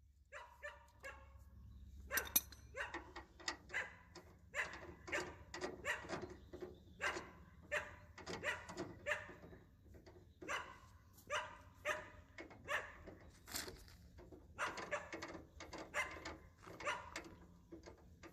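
A dog barking repeatedly, short barks coming about one or two a second, starting about two seconds in.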